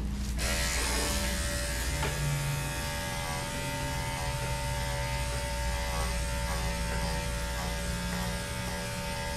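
Andis electric dog clippers buzzing steadily as the blade cuts through a dog's coat, with the cutting hiss picking up about half a second in.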